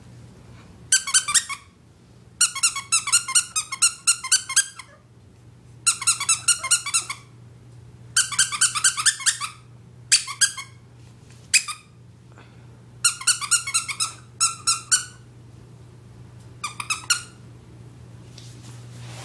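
Squeaky dog toy being chewed by a puppy, squeaking in quick runs of rapid squeaks, about eight bursts with short pauses between. A faint steady low hum underneath.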